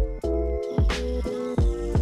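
Background music: held chords over a deep drum beat that hits about every three-quarters of a second.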